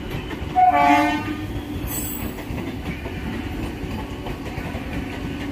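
A train horn sounds one short blast, about half a second long, shortly after the start, over a steady low hum.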